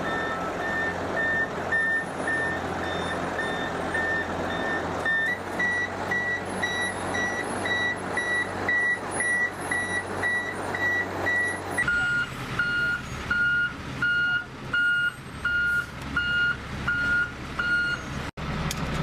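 Backup alarms on military six-wheel trucks beeping about twice a second over the trucks' running engines. The beep's pitch changes twice, a little higher about five seconds in and lower about twelve seconds in.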